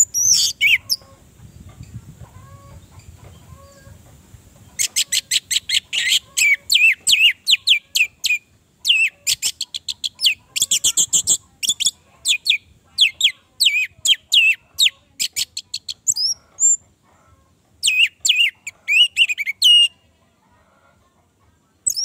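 Orange-headed thrush singing in rapid runs of short, high notes: a brief burst at the start, a long run from about five seconds in, and a shorter run near the end, with pauses between.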